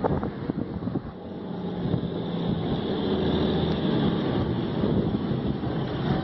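A motor vehicle's engine running with a steady low hum, growing louder over the first few seconds and then easing slightly, with wind on the microphone.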